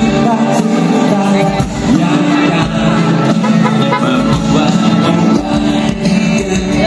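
Loud band music with a singer.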